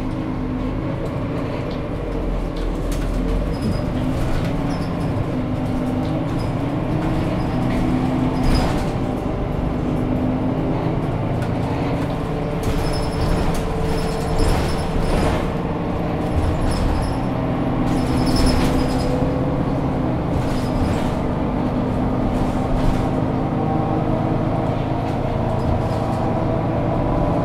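Mercedes-Benz O530 Citaro city bus with ZF Ecomat automatic gearbox driving, heard from inside the passenger cabin: a steady diesel engine drone whose pitch rises and falls slowly, with occasional rattles from the interior fittings.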